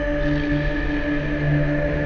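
Dark ambient horror drone: several steady, overlapping held tones, low and mid-high, swelling and ebbing slightly without a break.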